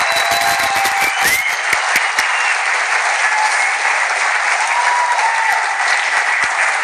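A large audience applauding steadily, with a few low thumps in the first two seconds.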